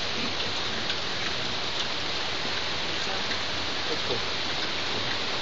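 A steady, even hiss of noise with no rhythm or break.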